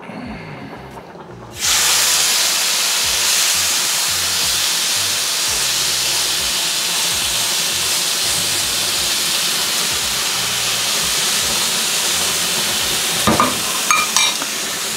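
Raw chicken breast sizzling on a hot ridged grill pan. The sizzle starts suddenly about a second and a half in as the meat goes onto the pan, then runs steadily, with a few light clicks near the end.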